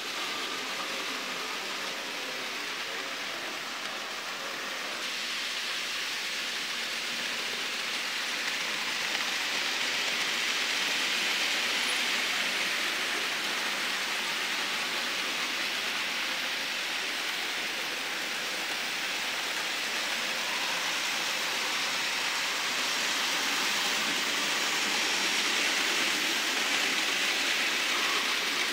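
Hornby and Bachmann OO gauge model trains running round a layout: a steady rushing hiss of small wheels on track and motors, a little louder from about five seconds in.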